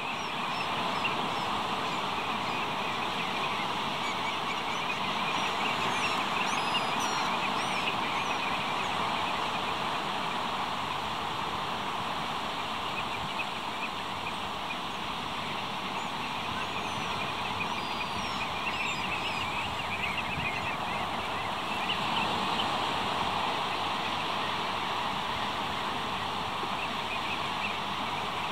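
A large flock of ringed plovers calling continuously, a dense chatter of many short piping calls overlapping one another, over a steady rush of surf on the shore.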